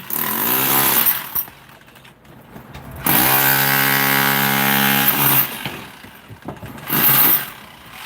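Handheld electric power tool run in bursts: a short run at the start, a longer steady run of about two and a half seconds in the middle, and a brief burst near the end. Each run winds up and back down in pitch.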